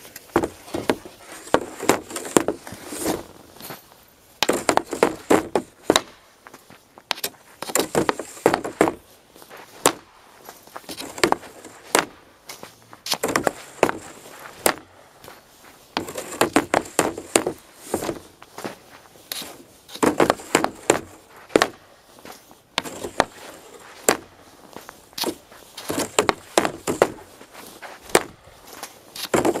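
Repeated hockey shots taken with an Easton Stealth RS composite stick: bursts of sharp cracks and clatter as the blade strikes the ice and puck. The bursts come about every three seconds.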